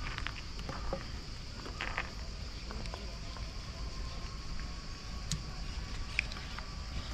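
Outdoor ambience heard from a moving bicycle: a steady low rumble of wind and riding, with scattered small clicks and ticks and a faint steady high hiss.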